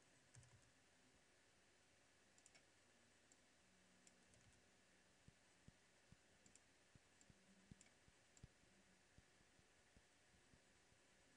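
Near silence: faint room tone with scattered soft clicks from a computer mouse and keyboard, more frequent in the second half.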